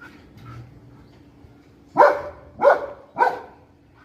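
A dog barking three times in quick succession about halfway through, each bark short and loud.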